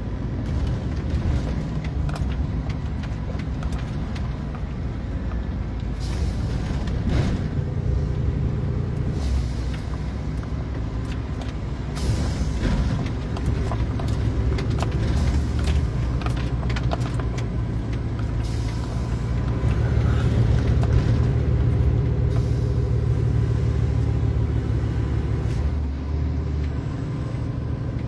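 A heavy truck's engine drones steadily as heard from inside the cab while driving slowly, with scattered knocks and rattles from the rough road and a few short spells of hiss.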